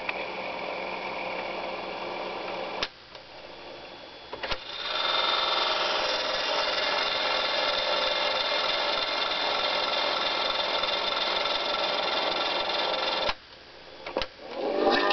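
Lira-206 portable reel-to-reel tape recorder fast-winding its tape: a steady whirr of the motor and spinning reels. Its piano-key controls click about three seconds in and again at about four and a half seconds, when a louder whirr starts; that whirr stops with another click near the end, followed by one more click.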